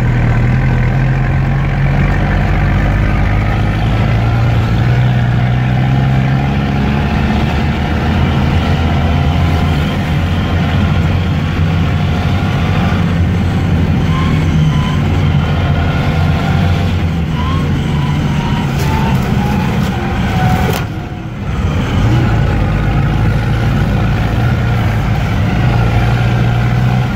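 Off-road 4x4's engine running under steady load while driving over a rough dirt road, heard from inside the cab. About three-quarters of the way through there are a few knocks from the body, and the engine briefly eases off before pulling again.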